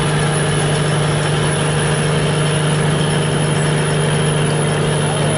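A barge's engine running steadily at one constant, unchanging pitch.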